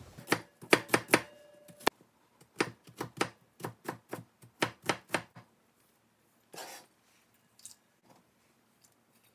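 Kitchen knife chopping lotus root into small cubes on a plastic cutting board: a quick run of about fifteen sharp knife strikes, roughly three a second, for the first five seconds or so. A couple of fainter sounds follow.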